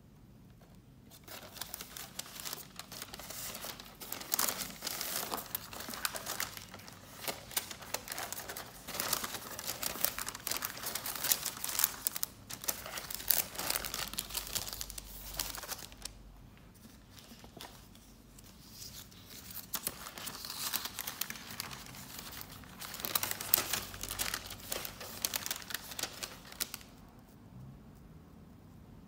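Paper sheets rustling and crinkling as they are handled and shuffled, in two long stretches with a pause of a few seconds in the middle.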